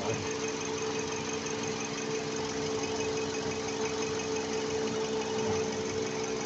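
Toyota Camry engine idling steadily, with an even, unchanging hum.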